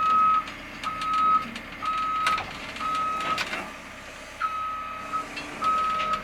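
Cat 320 excavator's travel alarm beeping about once a second while the machine tracks into position, over its engine running, with a couple of sharp clanks partway through.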